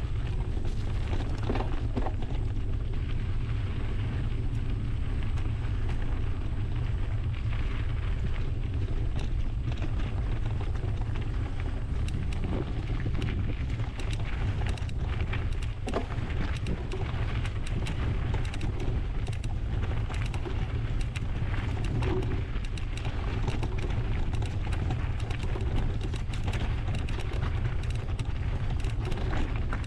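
Ride noise from a mountain bike filmed on a GoPro. Wind buffets the camera's microphone as a steady low rumble, and frequent small clicks and rattles come from the bike and its tyres on the trail.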